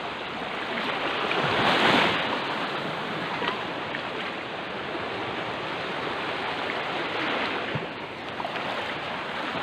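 Sea waves washing at the shoreline: a steady rush of surf, with one louder wave surging about two seconds in.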